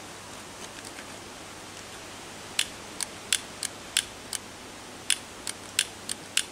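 Long-reach gas lighter's piezo igniter clicked about a dozen times in quick, irregular succession, starting about two and a half seconds in. The lighter is failing to light.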